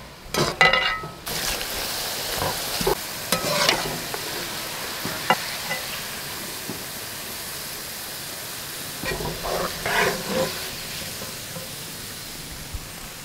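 Sliced onions sizzling steadily as they deep-fry in oil in a large metal pot. A slotted metal skimmer scrapes and clinks against the pot in a few short bursts as the onions are stirred and lifted out, fried brown and crisp.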